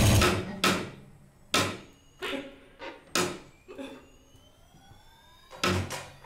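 Loud music cuts off just after the start, followed by a string of sharp, irregularly spaced knocks with short ringing decays, about eight of them, with a pause in the middle. Faint sliding tones rise and fall between the knocks.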